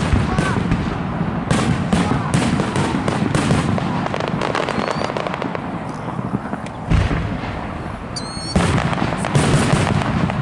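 Aerial fireworks shells bursting in a rapid, continuous series of booms and crackles. A particularly heavy boom lands about seven seconds in.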